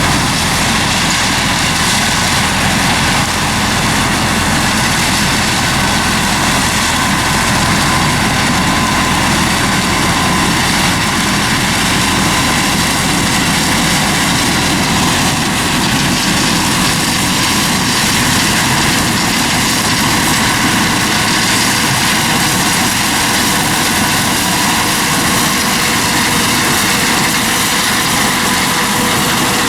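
Combine harvester running steadily under load while harvesting corn: a constant engine drone with a steady machinery whine over it.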